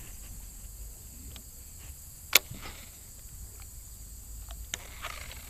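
Handling of a baitcasting rod and reel: one sharp click about two seconds in and a few fainter ticks, over a quiet open-air background.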